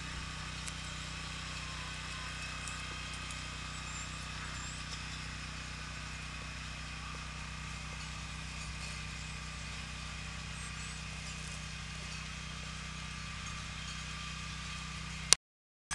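Steady low hum with an even hiss and a few faint ticks; near the end a sharp click, then the sound drops out for a moment.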